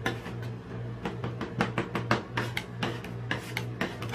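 Metal ice cream spatulas clicking, tapping and scraping on the frozen steel plate of a rolled ice cream machine as the ice cream is chopped and pushed into rolls, with quick irregular strikes over a steady low hum.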